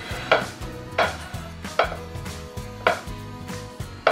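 A large knife cutting down through a partly frozen icebox cake of cookie and cream layers on a plate, in about five sharp strokes under a second apart.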